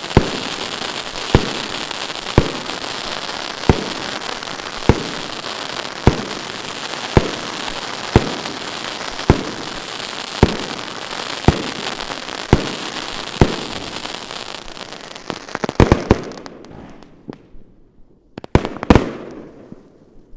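Fireworks going off: sharp bangs at a steady pace of about one a second over continuous crackling. About three-quarters through there is a quick flurry of bangs, then the crackling dies away and two last bangs follow close together.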